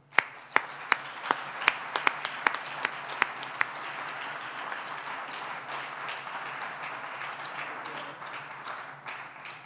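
Audience applauding. One person's hand claps sound sharp and close to the microphone, about ten evenly spaced claps at roughly three a second over the first three and a half seconds. The applause thins out near the end.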